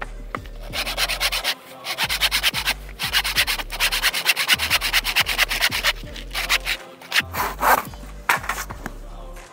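Handsaw cutting through a used wooden board: fast back-and-forth strokes in several runs, broken by short pauses, with a few slower, separate strokes near the end.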